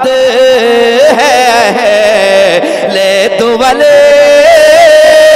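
A man's voice singing a naat in a long drawn-out melismatic passage, the pitch wavering and gliding through ornaments, then settling into a long held note in the second half.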